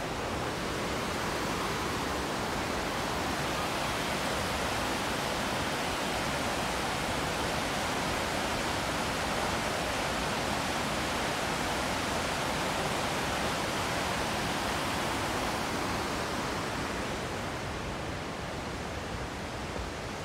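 Whitewater of the Sol Duc River rushing over rocks in its gorge by Sol Duc Falls: a steady rushing noise, a little louder through the middle and dropping slightly near the end.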